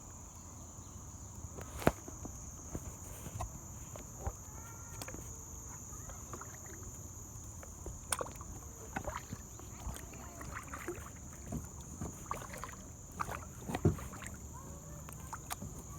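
Kayak drifting on a river: scattered light knocks against the hull and water sounds, over a steady high-pitched insect chorus.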